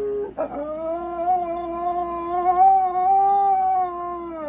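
Siberian husky puppy howling: one long, steady howl that starts about half a second in and drops in pitch as it ends.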